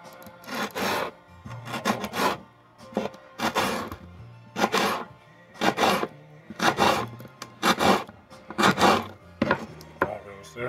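Kitchen knife slicing an orange bell pepper on a wooden cutting board: a series of short drawn cutting strokes, about one a second.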